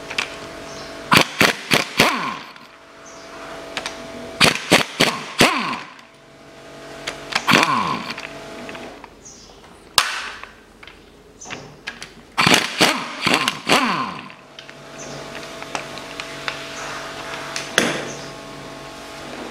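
Sharp metallic clicks and knocks in short clusters of four or five, every few seconds, from hand tools working on a bare engine block and its timing-chain hardware, over a faint steady hum.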